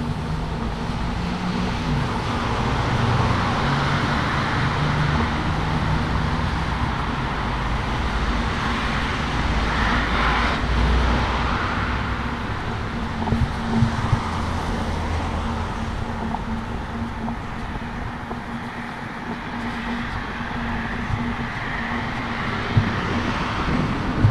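Road traffic: cars driving past, their tyre and engine noise swelling and fading twice, over a low engine hum.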